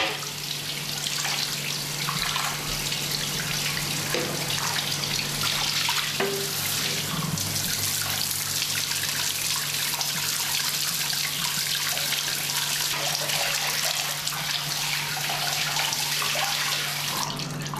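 Water spraying from a handheld shower head onto wet hair and splashing into a bathtub, a steady even rush over a low steady hum.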